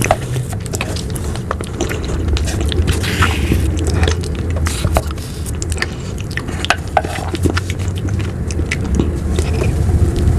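Close-miked mouth sounds of eating ice cream: a run of short sharp clicks and smacks from biting and licking. A steady low hum runs underneath.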